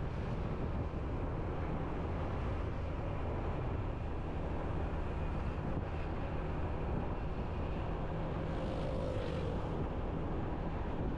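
Motorbike riding along a road: steady engine hum and road noise with wind rush. A brief hissing swell comes about eight and a half seconds in.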